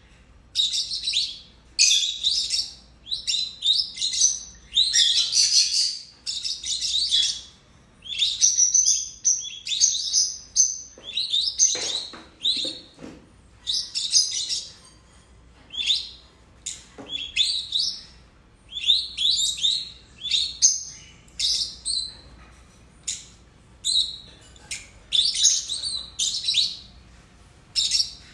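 A pair of peach-faced lovebirds (lutino, yellow with peach faces) chirping and calling in shrill, rapid bursts, one cluster after another with short pauses between.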